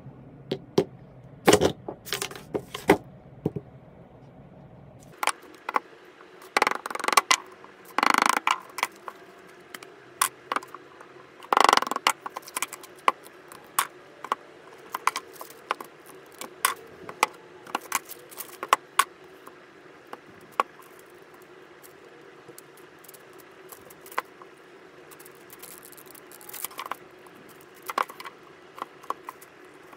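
A cured epoxy resin slab being worked loose from its plastic mould by hand: irregular clicks and knocks of hard resin and plastic, with a few short scraping stretches.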